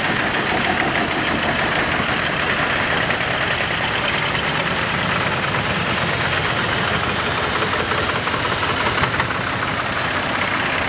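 Several vintage farm tractors driving past one after another, their engines running steadily with an even chugging beat, the nearest one passing close near the end.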